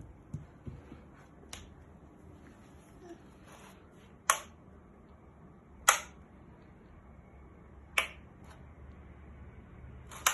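Sharp clicks with no held pitch: a few faint ones in the first two seconds, then four loud ones about two seconds apart.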